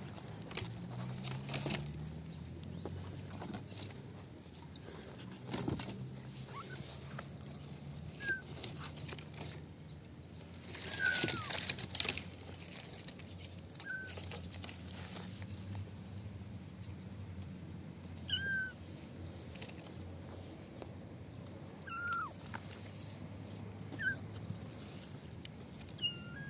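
Very young kittens mewing: short, high mews every few seconds, some falling in pitch, amid rustling and handling noise.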